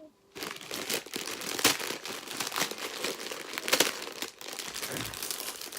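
Plastic packet of a dry ramen noodle snack crinkling and crackling as it is handled. It begins abruptly about a third of a second in and goes on as a dense run of irregular crackles with a few louder snaps.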